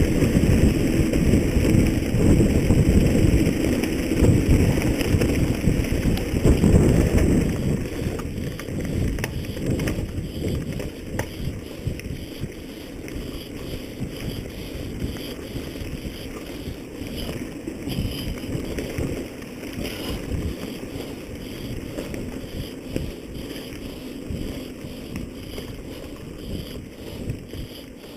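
Wind buffeting the microphone, with a dense run of small rattles and knocks. It is loudest for the first eight seconds, then drops to a quieter, steadier rush.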